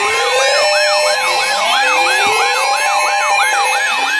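Several electronic emergency-vehicle sirens sounding together. A fast yelp sweeps up and down about three times a second over slower rising wails and steady tones.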